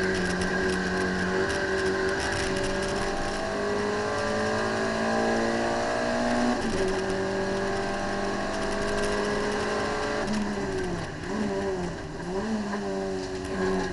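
Citroën AX GTI's four-cylinder engine heard from inside the cabin under hard driving on a circuit: the revs climb steadily for about six seconds, drop suddenly at a gear change, hold, then swing down and up a few times near the end.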